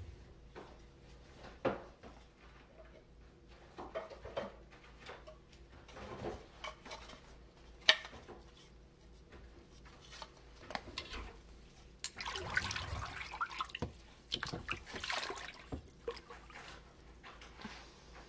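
Water and paper pulp sloshing and dripping in a plastic vat as a wooden papermaking mould with a mesh screen is handled and dipped in. Scattered small splashes and drips, a sharp knock about eight seconds in, and a few seconds of continuous splashing just past the middle.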